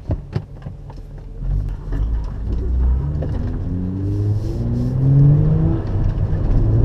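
Car engine pulling away and accelerating, its pitch climbing and then dropping back at each upshift before climbing again.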